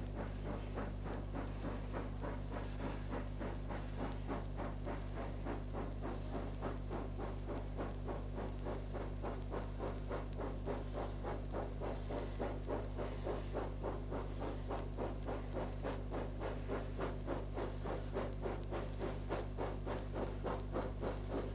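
South African Railways class 25NC 4-8-4 steam locomotive working hard up a grade: a steady rhythm of exhaust beats, about two a second, growing more pronounced in the second half. A steady low hum runs underneath.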